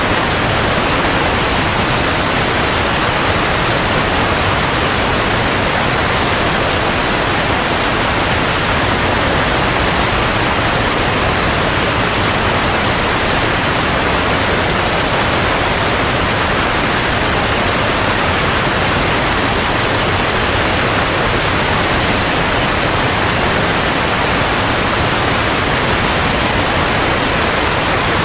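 Rushing water, a steady unbroken hiss of white water with no waves or surges.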